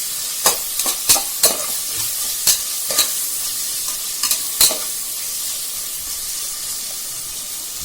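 Sliced onions and green chillies sizzling steadily in hot oil in a pressure cooker while being stirred, the stirring utensil knocking sharply against the pot about seven times in the first five seconds; after that only the sizzle continues.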